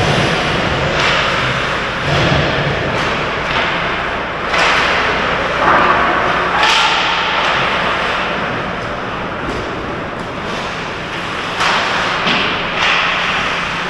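Ice hockey play near the net: skate blades carving and scraping the ice in short hissing surges, with sharp knocks of sticks and puck.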